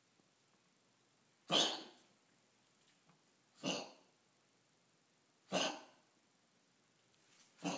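A dog coughing with kennel cough: four short, harsh coughs about two seconds apart.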